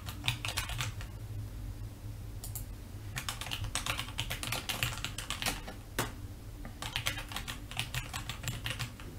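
Typing on a computer keyboard: quick runs of keystrokes, with a pause of about two seconds near the start.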